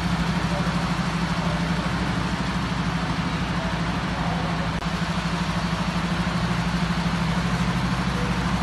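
Diesel engine of a tanker truck's tractor unit running at low, steady revs, with an even pulsing throb.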